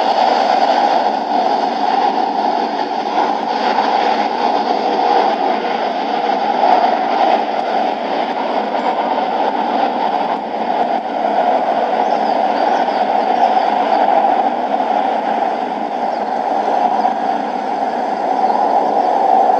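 Airbus A330-300 airliner jet engines running on the runway: a steady rushing noise with little bass.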